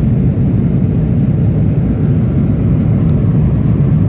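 Steady low rumble of jet engines and airflow heard inside the cabin of a Boeing 777-300ER airliner.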